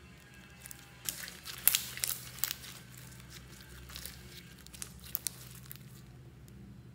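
Hands squeezing slime and handling a thin plastic slime tub: crinkling and crackling with sharp pops and clicks, the loudest cluster about one to two and a half seconds in and two more clicks near the end.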